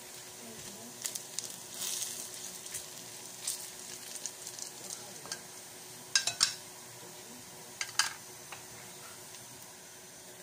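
Sliced garlic sizzling softly in oil in a pan while a slotted spatula stirs it, knocking and scraping against the pan now and then, loudest in a quick cluster about six seconds in and once more about two seconds later.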